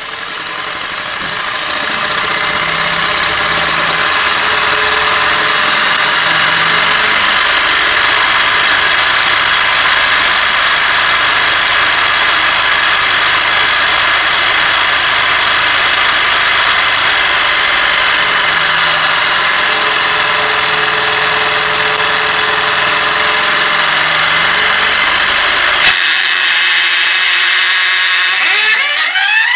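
Sewing machine's electric motor run far over its rated voltage on a three-phase supply, running flat out with a loud, steady high-speed whine and clatter. About 26 seconds in there is a click and the low rumble drops out, and near the end the pitch glides.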